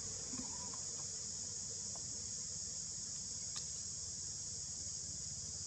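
Steady, high-pitched drone of a chorus of insects in the trees, with a single sharp click about three and a half seconds in.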